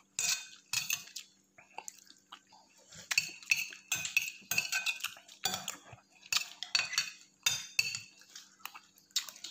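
Metal spoon scraping and clinking against a ceramic plate as it scoops up leftover rice, in quick, irregular strokes about two a second.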